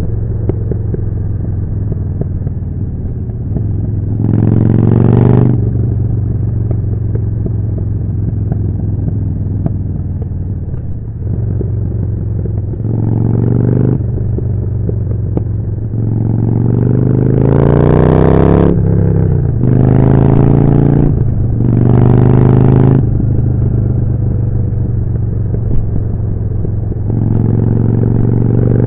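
Harley-Davidson Forty-Eight's 1200 cc V-twin running through a Jekill & Hide exhaust at a steady cruise, with five bursts of throttle where the revs climb. The longest, just past the middle, rises for about two seconds and then drops away, followed by two more short pulls.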